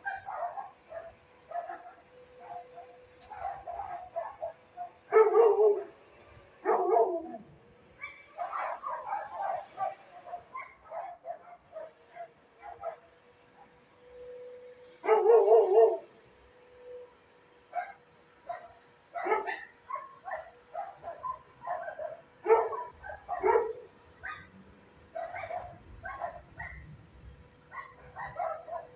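Dogs barking on and off, a few loud barks among many fainter ones, over a faint steady hum.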